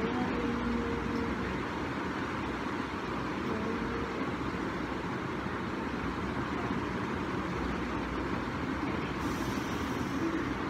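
Steady rushing background noise without a clear rhythm, with a faint short tone near the start.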